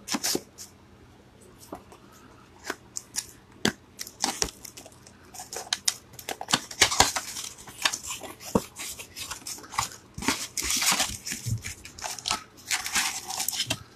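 Cellophane shrink wrap being torn and crinkled off a Yu-Gi-Oh card box by hand. A few scattered taps and clicks come first, then a dense run of crackling tears and rustles from about four seconds in.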